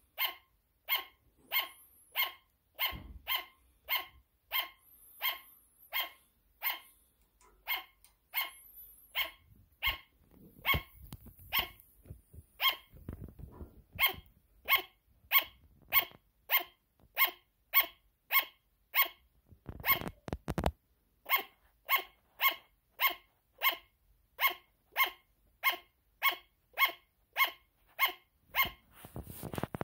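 Sugar glider barking: a long, steady run of short, sharp, high yaps, nearly two a second.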